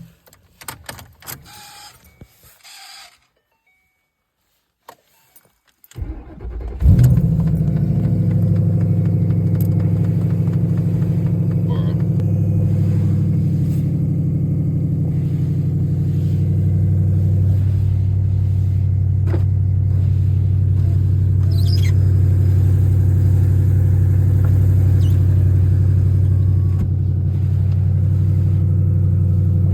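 Ford Mustang S197 engine cold-started in the snow: a short crank about six seconds in, a loud flare as it catches, then a steady idle. A few clicks come first, then a few seconds of silence.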